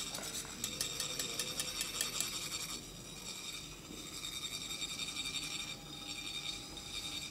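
Metal chak-pur sand funnels being rasped: a rod scraped along the ridged shaft makes a fast, fine metallic rattle with high ringing tones, shaking coloured sand out of the tip. The rasping changes and drops in level about three seconds in.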